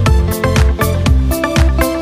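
Background music: an instrumental track with a steady drum beat, about four hits a second, over a bass line.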